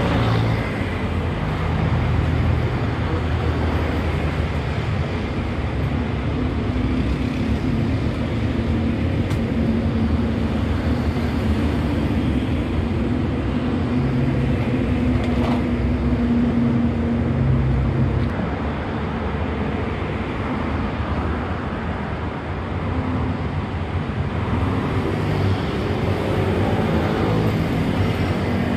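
Busy road traffic: cars and motorcycles passing steadily, engines and tyres. One engine's hum swells and fades from about a third to about two-thirds of the way through.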